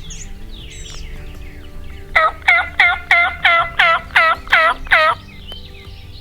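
A run of about nine loud hen-turkey yelps, about three a second, made on a hunter's turkey call to get a gobbler to answer. Songbirds chirp around them.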